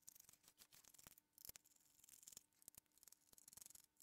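Faint, irregular scraping and clicking of a small screwdriver turning screws at the bottom of deep screw shafts in a plastic exercise-bike console case.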